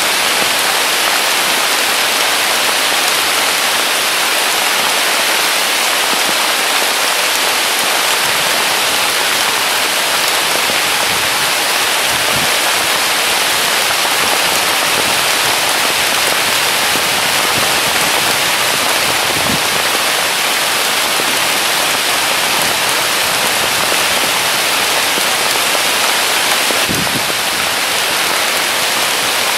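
Heavy rain pouring down steadily, a dense, even hiss of drops.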